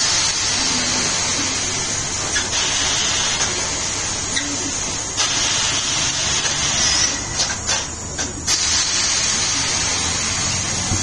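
Compressed air hissing loudly and steadily from an air line during a tyre change, with short breaks about five seconds in and again between about seven and eight and a half seconds.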